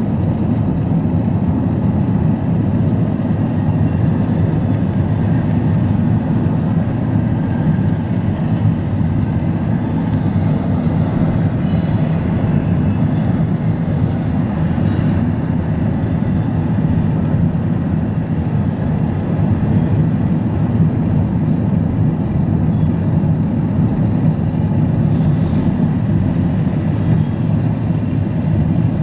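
Steady low rumble of a car driving alongside a double-stack intermodal freight train, heard from inside the car: road noise mixed with the rolling of the train's stacked container cars.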